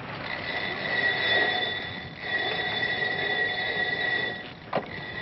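Running rigging squealing as the ship goes about: a high, steady squeal in two long stretches with a short break between. A sharp knock follows near the end.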